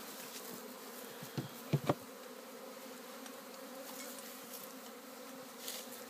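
A honeybee swarm buzzing in a steady hum around an open hive box as it is being hived, with two short knocks a little under two seconds in.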